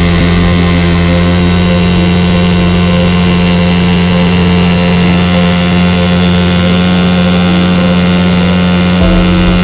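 Bajaj Pulsar NS200's single-cylinder engine held at high revs during a standing burnout, the rear tyre spinning on the tarmac. The engine note stays at one steady pitch.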